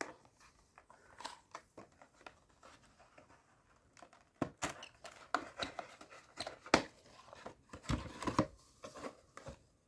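Plastic wrap and a cardboard trading-card booster box being handled and opened: scattered clicks, scrapes and crinkles, sparse at first and busier from about halfway through.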